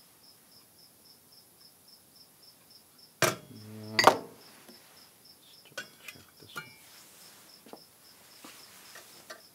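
Steel connecting rods set down on a workbench: two loud metallic clanks with a ringing tone, about three and four seconds in, then a few lighter clinks.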